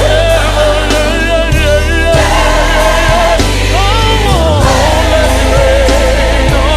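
Gospel worship song with a choir singing long, wavering held notes over a steady bass line and beat.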